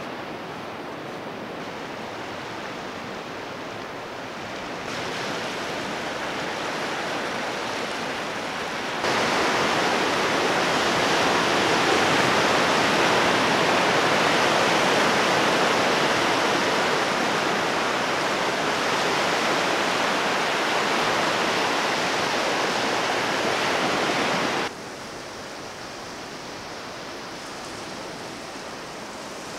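Sea surf washing in over a rocky shore: a steady rush of waves. The rush steps up abruptly about nine seconds in and drops back suddenly near the end.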